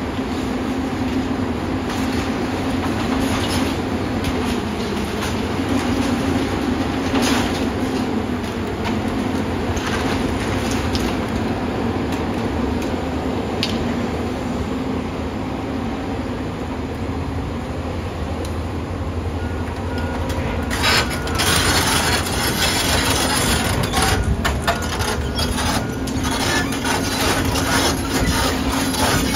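Volvo EC480EL excavator's diesel engine running steadily under load, with crashing, scraping and clattering of building debris as its grapple tears into the walls. The crashes come thicker over the last third.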